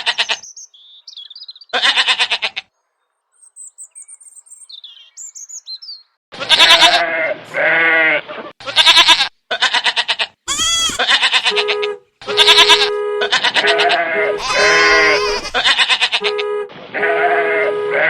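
Domestic goats bleating again and again, loud quavering calls. In a lull between the first bleats, a few small bird chirps can be heard.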